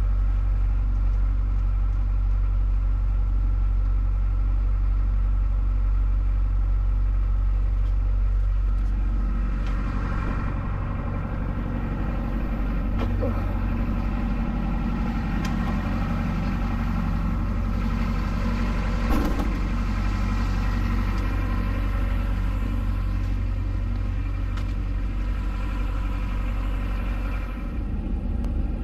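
A vehicle engine running steadily, its note changing about nine seconds in, with a brief knock near the middle.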